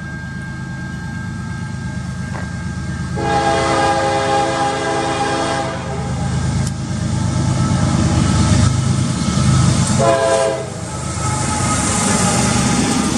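Passing train rumbling, with a locomotive air horn sounding several blasts: a long one about three seconds in, more over the next few seconds, and a short blast about ten seconds in.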